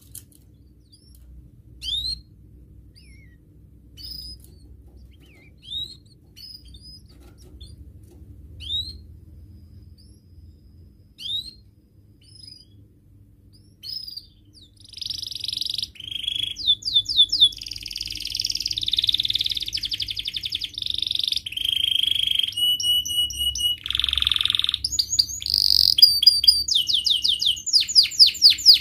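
Domestic canary giving single short upward-sweeping chirps every second or two. About halfway through it breaks into full, louder song: fast trills and rolls of repeated notes, buzzy passages and held whistled tones.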